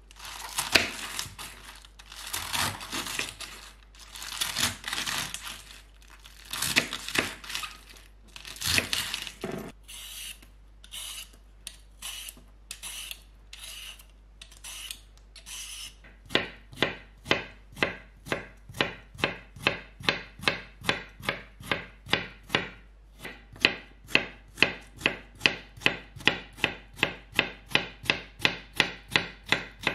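A kitchen knife slicing through lettuce on a bamboo cutting board in strokes about a second long. Then come short, light strokes as a cucumber is peeled, and from about halfway the cucumber is chopped on the wooden board in quick, even knife chops, about three a second.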